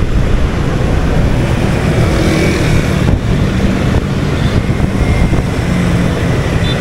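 Steady motorbike engine and road noise while riding in a stream of motorbike traffic.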